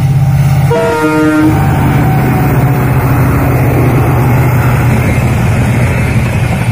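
WDP4D diesel-electric locomotive's EMD 16-cylinder two-stroke engine working hard with a deep steady hum as it accelerates a train. About a second in, the locomotive's horn gives a short blast that steps down to a lower note at its end.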